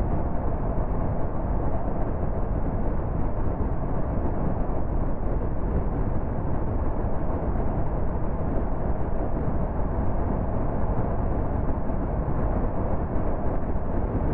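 Car cruising steadily at motorway speed: an even rush of tyre and wind noise that does not change.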